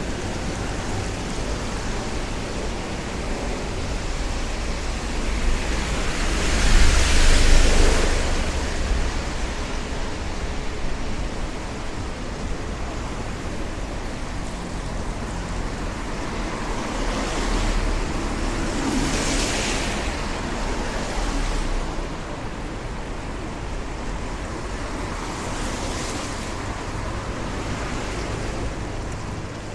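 Cars passing on a wet road, tyres hissing as each one swells and fades. The loudest goes by about seven seconds in with a low rumble, and others pass around eighteen to twenty seconds in and near the end, over a steady hiss of rain and traffic.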